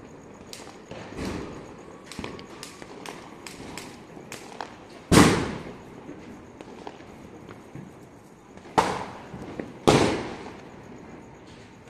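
Firecrackers and fireworks going off across the neighbourhood. Scattered small pops and crackles run through the first half, then come three loud bangs that ring on and fade off the buildings: one about halfway through and two close together near the end.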